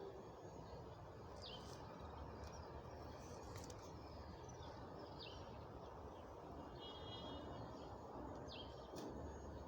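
Faint open-air background hiss with small birds calling: three short, high chirps that fall in pitch, a few seconds apart, and a brief trill between them.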